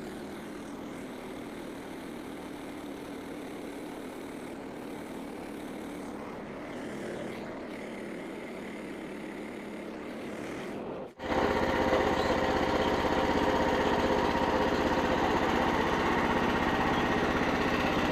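Frontier OS27 portable bandsawmill's small gasoline engine running steadily, fainter at first; about 11 seconds in the sound changes abruptly to a louder, closer engine.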